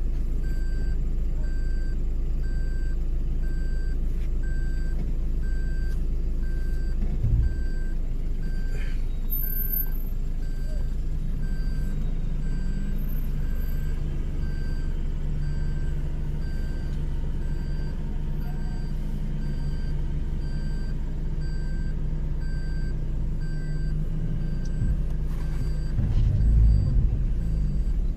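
A vehicle engine running steadily, its pitch stepping up about a third of the way in and a louder rumble near the end, with a faint electronic beep repeating about once a second throughout.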